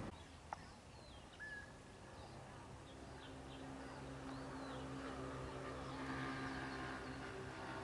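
Small birds chirping in short, high, scattered calls, over a low steady hum that sets in about two seconds in.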